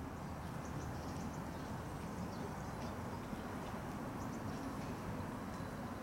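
Outdoor park ambience: a steady low rumble, with a few faint, distant bird chirps about half a second to a second in.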